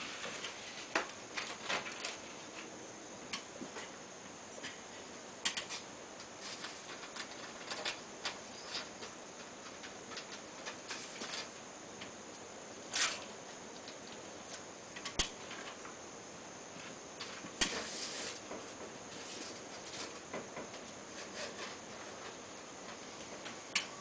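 Scattered light clicks and rustles, with a few sharper knocks, from air-conditioner piping and hoses being handled by hand, over a steady hiss.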